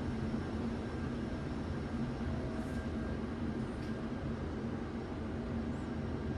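Passenger lift car travelling, heard from inside the car: a steady hum and low rumble with a few faint ticks.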